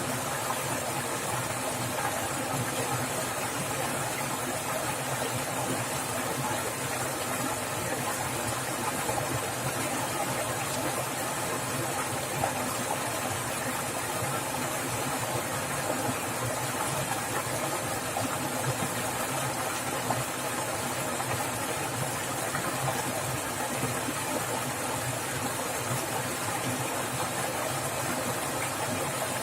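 Swift running water splashing in a steady, unbroken rush.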